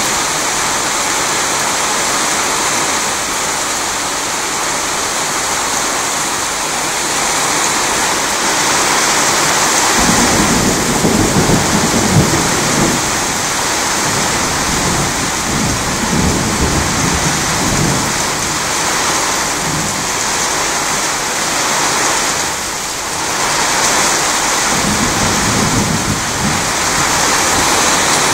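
Heavy rain pouring steadily during a night thunderstorm, recorded on a cellphone. About ten seconds in, thunder starts rumbling suddenly and goes on for several seconds, and a shorter rumble of thunder comes again near the end.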